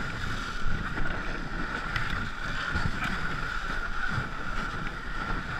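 Ice canoe's hull scraping steadily over snow as the crew runs pushing it, with irregular knocks and footfalls and wind on the microphone.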